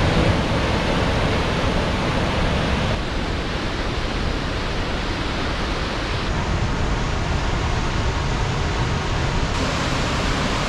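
Large waterfall pouring down a rocky gorge: a loud, steady rush of falling water, its tone shifting slightly about three, six and nine and a half seconds in.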